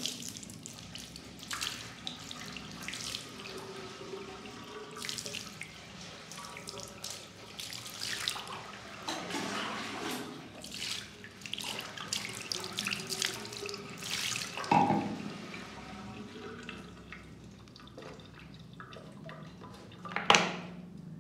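Water splashing and dripping in a bathroom sink as a wet kitten is scrubbed and lathered by hand, with irregular splashes and rubbing. Two louder sudden sounds stand out, one about fifteen seconds in and one near the end.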